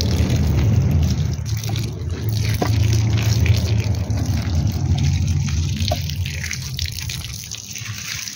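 Water pouring steadily from a plastic watering can onto garden soil and plants, easing off near the end.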